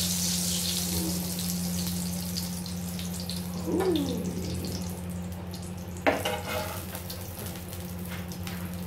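Hot cooking oil sizzling in a frying pan as a fried eggplant omelette is lifted out of it, the sizzle fading as it goes, over a steady low hum. A sudden short clink comes about six seconds in.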